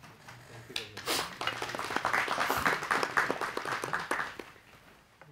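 Small audience applauding: a burst of hand clapping that builds about a second in and dies away after about four seconds.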